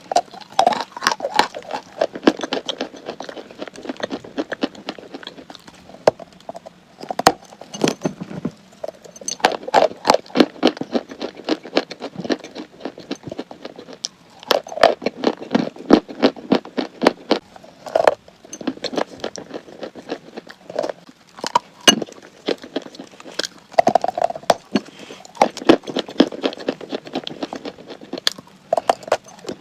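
Crunchy chalk being bitten and chewed close to the microphone: runs of dry, crackling crunches in bunches of a few seconds, with short pauses between them.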